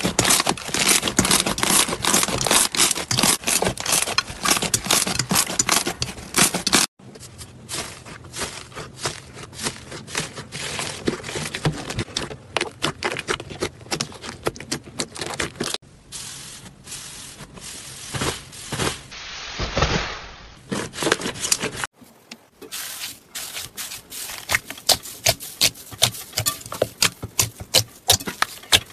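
Slime being worked by hand, giving dense crackling and popping clicks. It comes as a run of short clips that cut abruptly from one to the next, loudest in the first few seconds.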